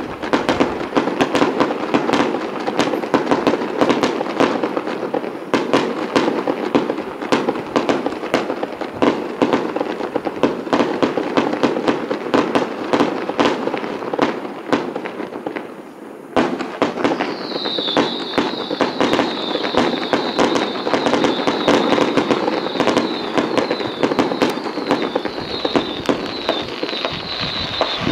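Fireworks going off: a dense, continuous run of sharp bangs and crackling from shells bursting, with a brief lull a little past halfway. After the lull a high whistle that falls in pitch repeats over and over among the bangs.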